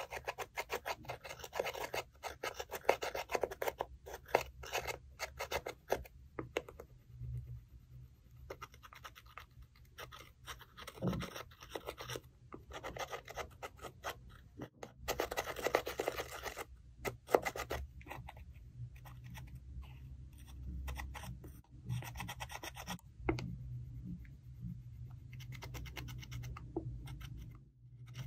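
Thin metal tool scraping and crumbling pressed eyeshadow powder in its pans: rapid gritty scratching strokes in bursts, with short pauses between them.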